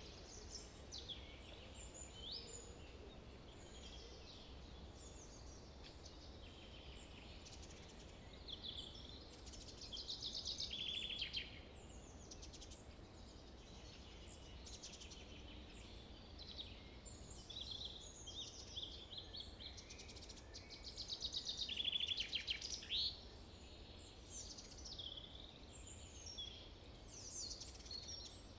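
Songbirds singing and chirping outdoors, many short high calls overlapping, with two louder, longer trilled songs about ten and twenty-one seconds in, over a faint low steady rumble.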